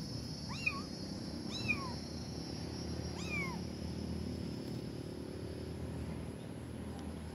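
Kitten meowing three times: short, high calls that rise and fall, the first two about a second apart and the third about a second and a half later.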